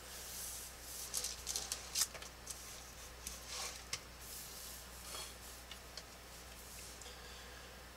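Plastic drafting triangle slid and repositioned across drafting paper: a run of short rubbing swishes with light clicks and taps, busiest in the first half.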